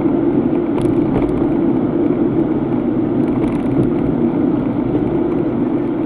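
Steady road and engine noise of a car driving along a town street, heard from inside the cabin.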